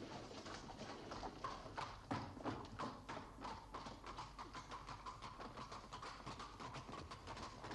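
Horse's hooves clip-clopping at a walk on hard paving, about four hoof strikes a second.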